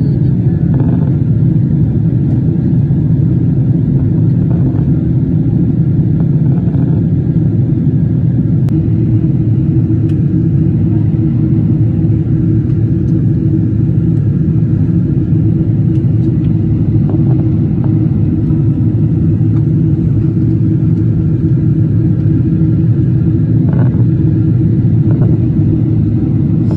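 Steady cabin noise of a jet airliner in flight, heard inside the cabin: the even, low rush of the engines and the air streaming past the fuselage.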